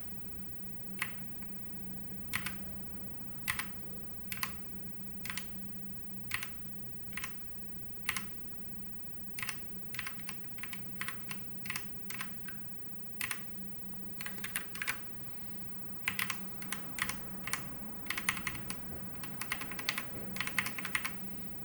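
Keys of a Whatgeek x 3inuS Kebohub EE01 mechanical keyboard being pressed one at a time to step through its lighting presets. The presses come about once a second at first, then in quicker runs of several clicks in the second half.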